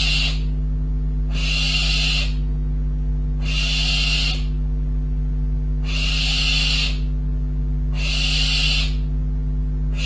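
Young barn owl giving its hissing food-begging call (the "snore"), a harsh hiss just under a second long repeated about every two seconds, five times, over a steady low electrical hum.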